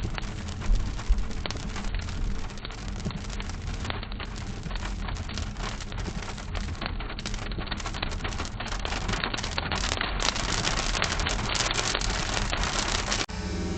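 Rain drumming on a car, recorded inside by a dashcam, over a steady low rumble from the car. It grows a little heavier near the end and then cuts off abruptly.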